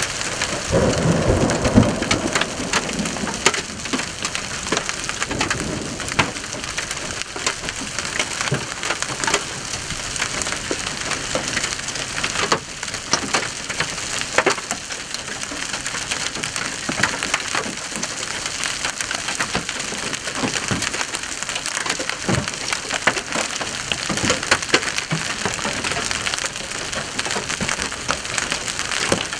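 Large hail, golf-ball to tennis-ball size, falling hard: a dense, steady clatter of stones striking asphalt and vehicles, mixed with the hiss of heavy rain. A low rumble sounds about a second in.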